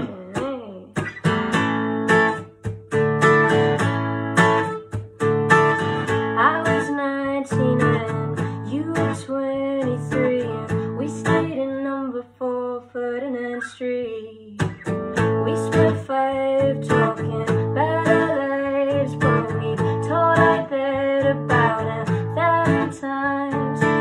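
Steel-string acoustic guitar strummed in a steady rhythm, with a woman's singing voice over it from a few seconds in.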